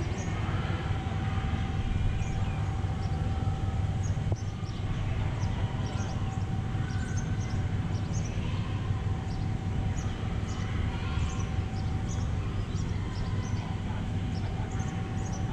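Long-tail boat engine idling with a steady low rumble and a thin, steady hum above it, the boat sitting still in the lock chamber.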